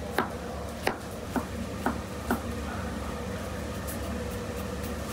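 A knife chopping on a cutting board: five sharp chops about half a second apart, stopping about two and a half seconds in, over a steady low hum.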